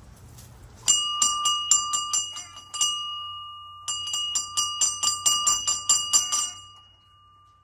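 A bell rung with rapid strikes in two bursts separated by a short pause, its tone ringing on between strikes and dying away near the end. It is a feed call to bring the chickens running.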